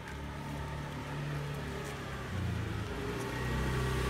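Motor scooter engine running, a low hum that grows louder as it approaches and steps up in pitch about halfway through.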